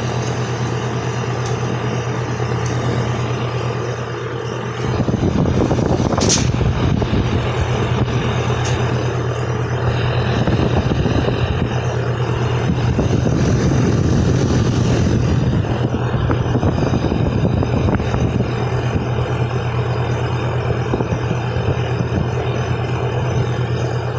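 2024 Ruud Achiever RA14AZ 4-ton central air conditioner outdoor unit running in cool mode: a steady low hum from its LG scroll compressor under the rush of the Genteq condenser fan. About five seconds in the rushing air gets louder and rougher.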